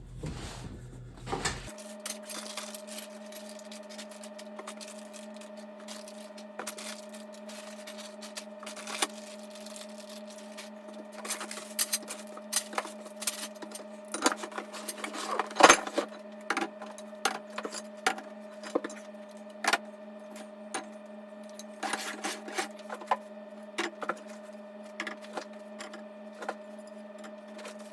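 Tent frame pipes and connectors clicking and knocking as they are handled, over a steady hum.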